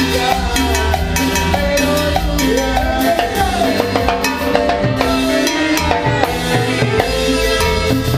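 Latin dance band playing live, with timbales and a mounted cowbell struck with sticks over a steady drum and bass groove.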